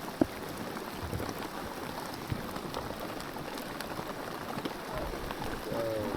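Heavy rain falling, with many small drop taps close to the microphone; a single sharp tap about a quarter second in.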